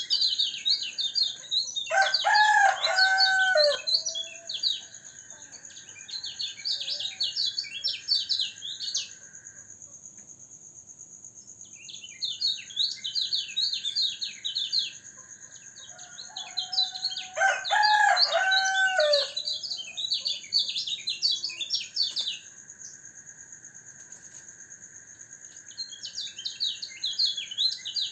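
A kecial kuning (white-eye) singing in phrases of rapid, high twittering chirps, broken by pauses, while it is out for morning dewing. A rooster crows twice in the background, about 2 seconds and 17 seconds in. A steady high whine runs underneath.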